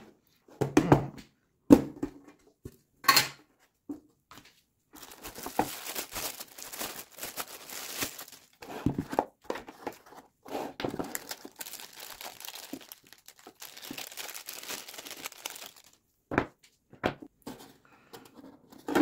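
Unpacking a metal storage tin with a moulded plastic tray: a few knocks and clicks of the tin and parts being handled, then several seconds of crinkling plastic rustle, and two more knocks near the end.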